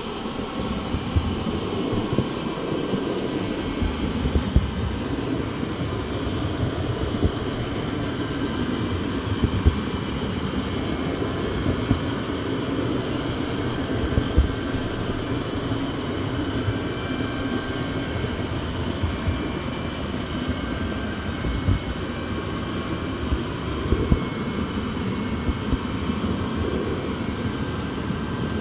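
Train rolling along the rails: a steady rumble with irregular clacks and knocks from the wheels and track, and faint thin squeals now and then.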